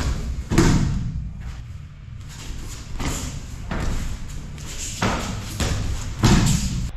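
A series of heavy thuds from bodies and bare feet landing on tatami mats during a leg-sweep throw. The loudest comes about half a second in and another near the end, with several lighter ones between.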